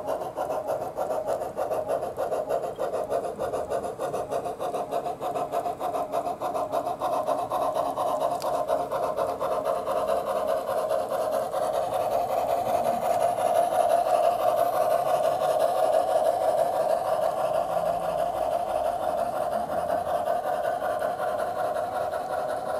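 Soundtraxx Tsunami sound decoder in a G-scale Bachmann Climax model locomotive, playing the rapid, even chuffing of a geared Climax steam engine through the model's speaker as it runs. It grows a little louder around the middle.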